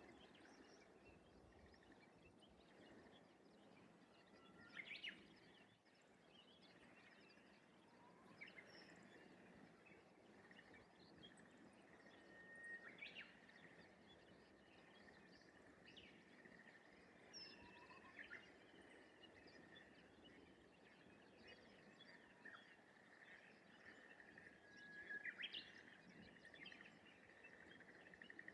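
Faint open-air countryside ambience: scattered distant bird calls, the clearest about 5, 13 and 25 seconds in, over a steady thin high note and a soft hiss.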